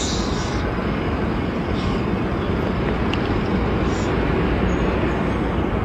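Steady low rumbling noise, like the road noise of a moving vehicle.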